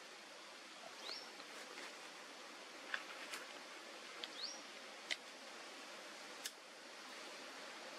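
Quiet forest ambience with a steady faint hiss. A few short, high chirps rise in pitch, and a handful of sharp clicks stand out, the loudest about halfway through.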